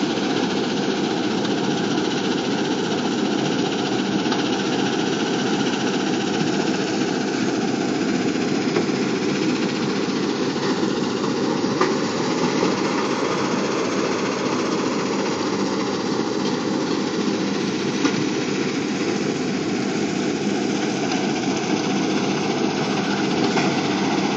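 Crushing and screening plant running steadily: constant diesel machinery noise mixed with crushed rock pouring off the stacker conveyor onto the pile, with a few sharp knocks.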